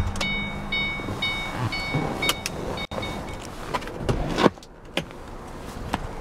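The 2008 Ford Mustang GT's engine cuts off at the very start. The car's warning chime then dings about twice a second for around three seconds. A few clicks and a loud clunk about four and a half seconds in follow as the front seat's release lever is pulled and the seat tips forward.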